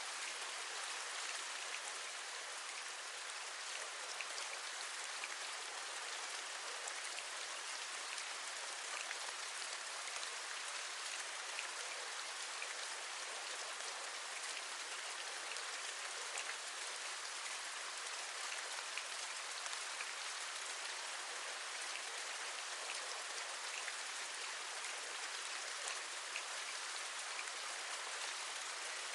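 Steady rain: a continuous hiss of falling rain, dotted with many small drop taps.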